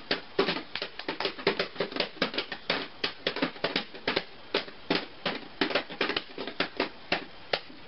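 A baby slapping its hands on the tops of hollow plastic toys: quick, irregular taps, several a second.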